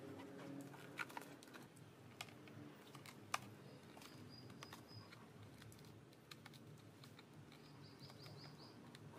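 Faint, scattered small clicks and taps of a cutter knife trimming vinyl sticker film and the film being handled. A bird chirps briefly about four seconds in, then gives a quick run of about six chirps near the end.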